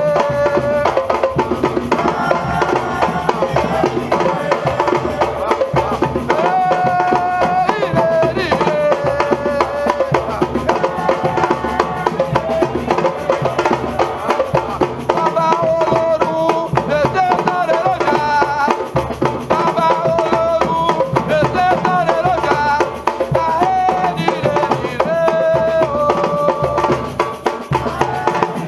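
Music: drums and hand percussion keep a steady rhythm under a melody of held, gliding notes.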